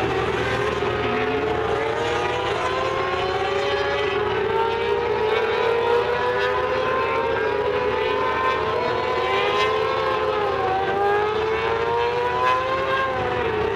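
Several mini sprint car engines running at racing speed, their overlapping pitches rising and falling continuously as the cars circle the dirt oval.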